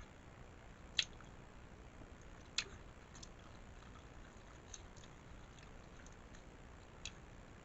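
A person chewing food close to the microphone, with a few sharp, wet mouth clicks, the clearest about a second in and again about two and a half seconds in.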